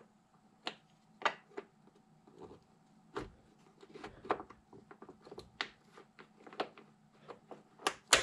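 Small steel parts of a homemade bench-grinder tool rest clicking and knocking together as a bracket and pin are worked onto their mount by hand. The knocks are short and irregular, about a dozen of them.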